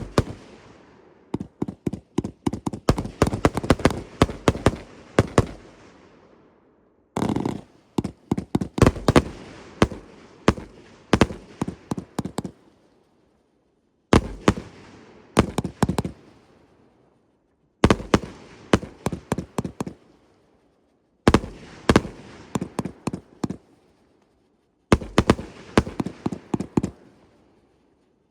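Multi-shot fireworks cakes firing in volleys of rapid loud bangs, a new volley every three to four seconds, each dying away in echoes before the next.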